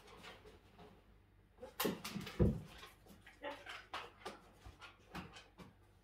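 Irregular footsteps, scuffs and knocks of a person and a dog moving about on a wooden plank floor, with a heavier thump about two and a half seconds in.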